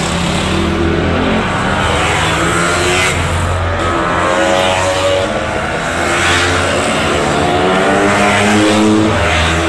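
Scooter engines at a rally racing past one after another. The pitch rises and falls with each pass, and the revving overlaps throughout.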